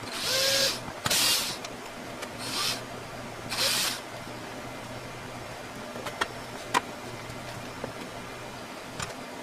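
Cordless drill run in four short bursts, backing screws out of old equipment on the wall, followed by a few light clicks.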